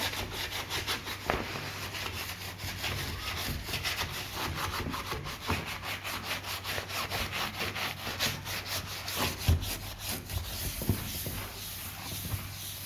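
A sponge scrubbing the plastic of an automatic washing machine in quick, repeated rubbing strokes.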